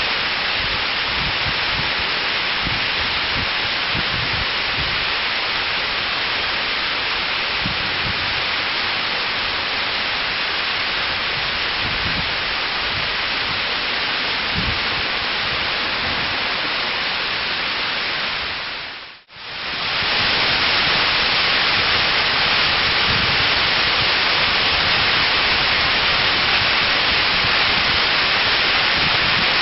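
Steady rush of a waterfall's falling water. About two-thirds through it fades away briefly and comes back slightly louder.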